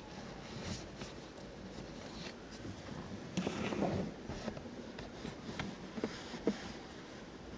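Hand rubbing and pressing on car rear-seat fabric upholstery: scratchy rustling with small clicks and knocks, loudest in a brief spell of rubbing about halfway through.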